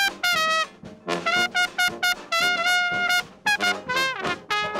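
Solo trumpet playing traditional New Orleans jazz: short phrases of notes, several of them ending in a downward fall, with one longer held note about halfway through.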